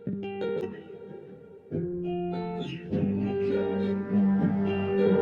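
Music: plucked electric guitar playing notes and held chords, fuller from about three seconds in.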